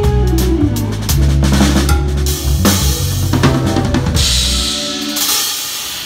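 A band playing live, led by a drum kit with kick, snare and rim hits over a bass line; about four seconds in, a cymbal crash rings out and the bass drops away, and the playing fades.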